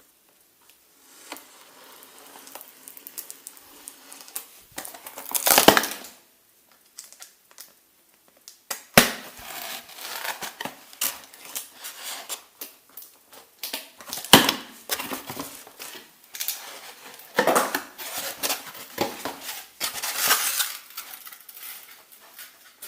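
Cardboard box and plastic packaging being opened and handled, with irregular crinkling, rustling and sharp clicks and knocks; the loudest rustles come in separate bursts, about every few seconds.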